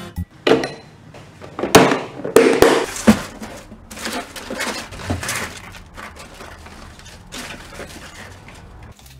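Hands rummaging through sheets of sandpaper in a cardboard box, with paper and cardboard rustling and crinkling. Several sharp knocks and louder scrapes come in the first three seconds, then quieter rustling follows.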